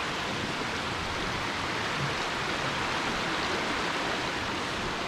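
Steady rush of flowing water from a spring-fed stream and its cascades, with no breaks.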